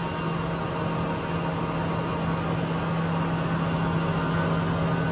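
Weiler E110 CNC lathe running with its spindle and large chuck turning freely, not cutting: a steady hum with one strong low tone, getting slightly louder about halfway through.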